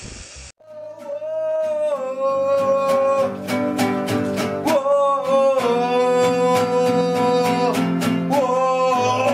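A brief burst of TV-static hiss, then an acoustic guitar strummed with a man singing long held notes.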